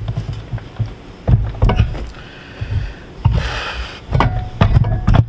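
Heavy metal clunks and knocks as a removed truck turbocharger and cast-iron exhaust manifold assembly is handled and shifted on a metal stand. There is a short scraping rush about three and a half seconds in.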